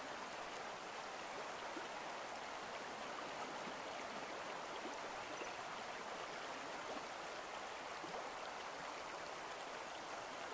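Fast river current, a steady rushing of water.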